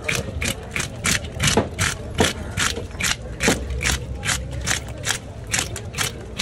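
A hand scraper descaling a large grey mullet: quick repeated scraping strokes, about three a second, as the blade rakes the scales off the fish's side.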